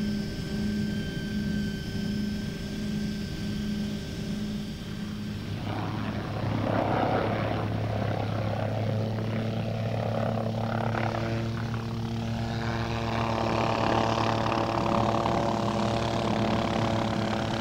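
Hughes 500C turbine helicopter flying, heard from on board: a steady rotor and engine drone that grows louder and fuller about five or six seconds in.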